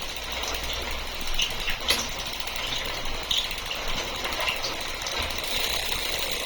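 A new Shimano 8-speed planetary internal gear hub squeaking as the wheel turns: short high squeaks recur irregularly, about twice a second, over a steady low hum.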